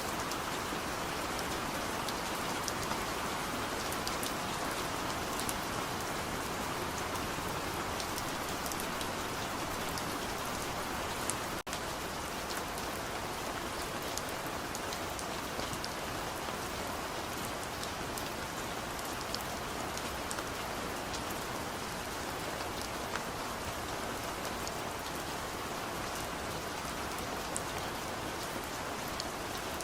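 Steady rain falling: an even hiss with scattered sharper ticks of single drops. A split-second dip in the sound about twelve seconds in.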